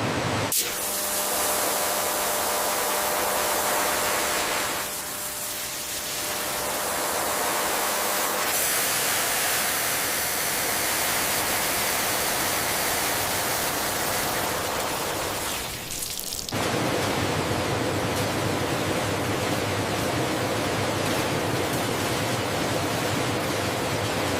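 Steady rushing hiss of factory processing machinery. Its tone shifts abruptly several times, about 5, 8.5 and 16.5 seconds in.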